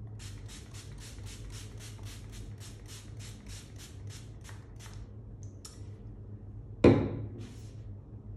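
Small trigger spray bottle misting water onto an ink wash on paper: rapid short hissing squirts, roughly four a second, for about five seconds. About seven seconds in comes a single loud thump, then one more squirt.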